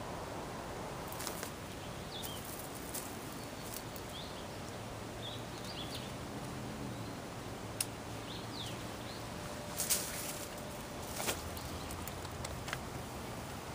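Woodland ambience: a steady low hiss with scattered short bird chirps, and a few sharp clicks and rustles as a backpack and its pouch are handled, the loudest about ten seconds in.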